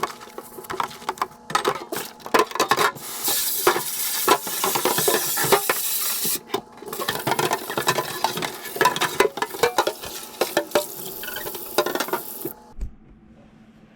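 Kitchen tap running into a sink while items are washed and scrubbed, with many knocks and clatters of dishes or plastic against the sink. The water stops briefly about six seconds in and cuts off about twelve and a half seconds in.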